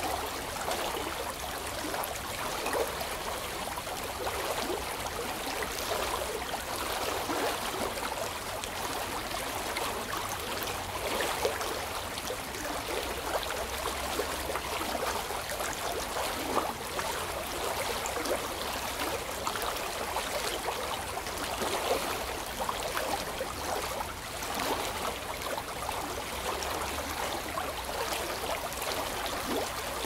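Water running steadily: a continuous trickling flow with many small splashes, unchanging throughout.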